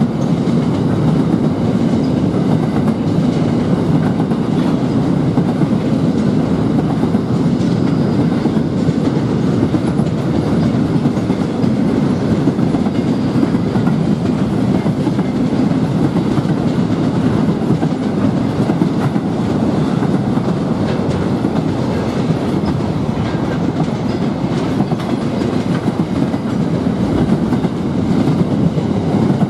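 Freight train of container wagons rolling past at steady speed: a continuous, even rumble of steel wheels on the rails, with no horn or engine note standing out.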